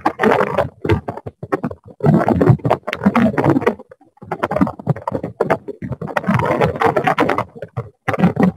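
Garbled, choppy audio from an open microphone on a video call. It breaks up into fragments with sudden drop-outs and interference, and no words can be made out.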